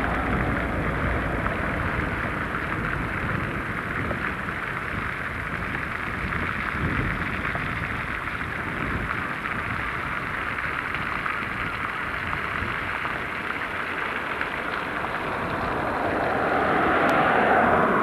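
Steady rushing noise of road traffic, getting somewhat louder near the end.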